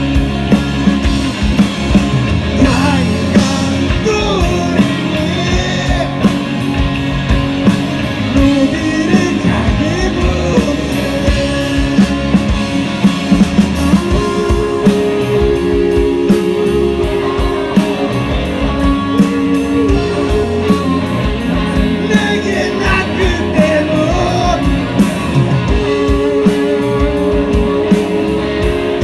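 Rock band playing live: steady drums, electric guitars and bass, with a singing voice at times.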